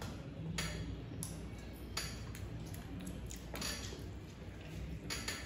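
People eating chicken biryani with their hands: soft chewing and mouth sounds, with a handful of light clicks and clinks against the plates, over a low steady hum.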